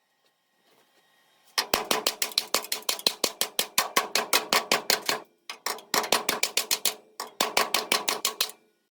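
MIG welder laying short runs on car body sheet metal, three bursts of fast, even popping with brief breaks between them.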